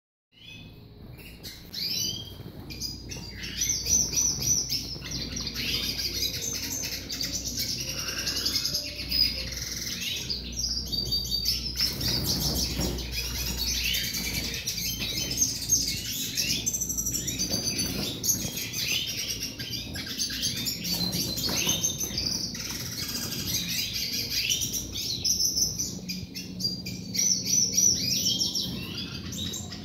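Caged finches singing: a male red siskin courting a buff canary hen, with continuous fast twittering song, trills and high chirps from the birds in the breeding cages.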